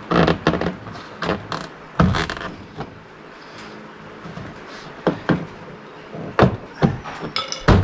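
A long screwdriver prodding and scraping along a golf cart's plastic floor trim to tuck the rubber floor mat's edge under it: irregular clicks, knocks and scrapes, with a short squeaky scrape near the end.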